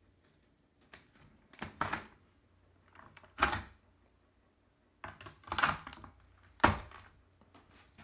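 Plastic knocks and scrapes as a Dyson cordless stick vacuum is lifted off its wall-mounted hanger and slotted back on. Two sharp clacks stand out, one a little before midway and one near the end.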